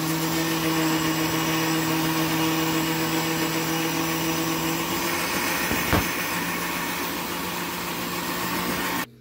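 Countertop blender with a stainless steel base running steadily, liquefying a barbecue sauce mixture of ketchup, mustard, garlic, onion and orange juice. A single sharp knock about six seconds in, and the motor cuts off near the end.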